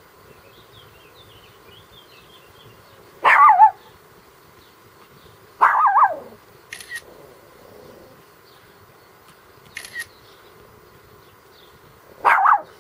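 An animal calling three times, a few seconds apart; each call is loud, about half a second long and wavers in pitch. Two short, sharp clicks fall between the calls.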